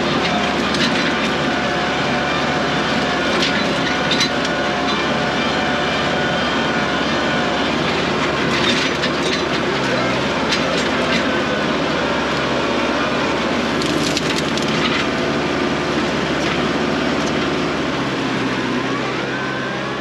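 Compact tractor engine running steadily while its front-end grapple drags brush and a stump, with several sharp cracks and snaps of wood breaking.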